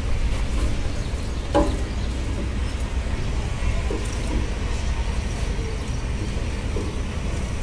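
Steady low rumble of wind buffeting the microphone outdoors, with a faint background hiss and one or two small knocks.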